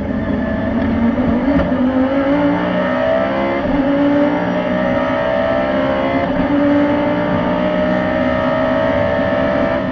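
Onboard sound of an Audi R8 race car's V10 accelerating hard at full throttle. Its pitch climbs, drops at an upshift about a third of the way in, climbs again and changes once more past the middle as it goes from third gear up to fifth.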